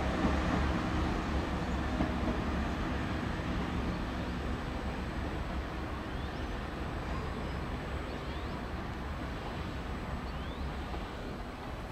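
Class 166 diesel multiple unit pulling away, its diesel engines and wheels making a steady low rumble that slowly fades as the train draws off.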